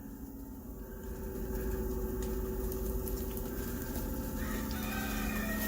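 HVAC air handler blower motor humming as it slows down after restarting, a steady electrical hum that grows a little louder about a second and a half in, with a higher whine joining near the end. The motor is failing to keep running: it slows and stops after starting, its windings still powered.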